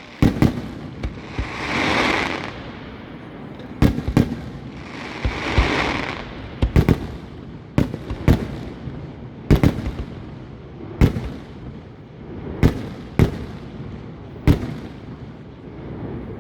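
Category 4 display fireworks: about a dozen aerial shells bursting with sharp bangs at irregular intervals, some in quick pairs, and two longer hissing swells a couple of seconds and about six seconds in.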